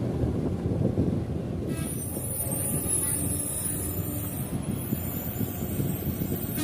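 Heavy diesel engine running with a steady, rough low rumble; a thin high whine joins about two seconds in.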